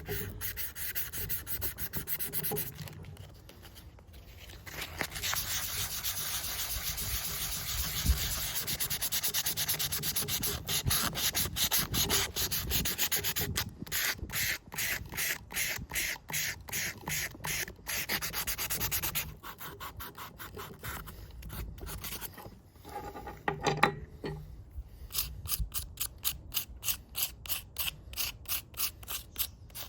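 Hand scrubbing the degreaser-coated steel parts of Felco No. 2 pruning shears, in quick back-and-forth rubbing strokes about three a second. There are brief pauses about three seconds in and again past the middle.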